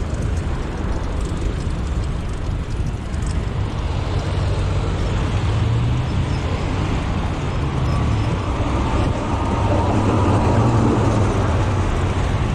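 Road traffic: car and bus engines running close by with a steady low rumble, growing a little louder from about eight seconds in.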